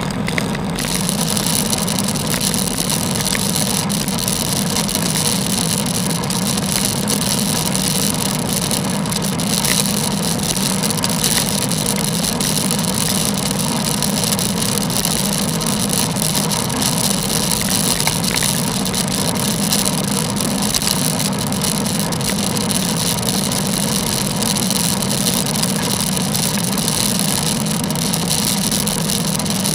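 Steady wind and road noise of a bicycle ride, picked up by an action camera riding on the bike or rider: an unbroken rush with a low hum under it.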